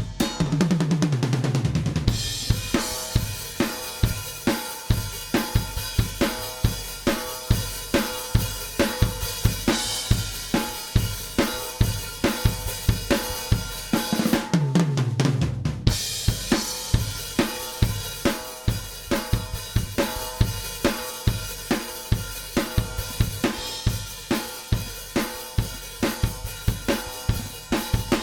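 Recorded rock drum kit groove played back: steady kick, snare and cymbal hits. A tom fill falling in pitch opens the pattern and comes round again about halfway through. This is the test material being run through an FMR Audio RNLA compressor.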